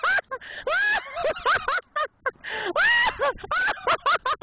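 A woman laughing hard: long, high squealing whoops broken by quick bursts of laughter.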